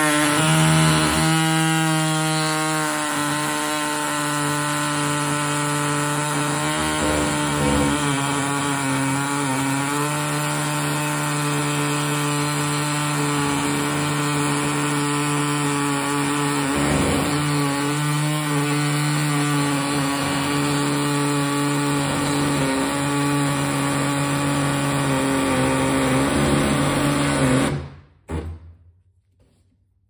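Electric power tool running steadily while cutting into a car's front-end body panel, its motor pitch wavering slightly as it bears on the work; it cuts off a couple of seconds before the end.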